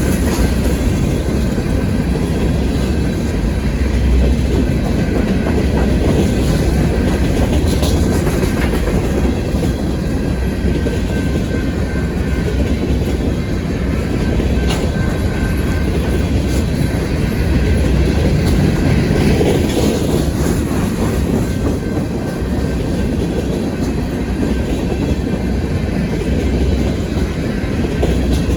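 Freight train cars rolling past with a steady rumble, their wheels clacking over the rail joints.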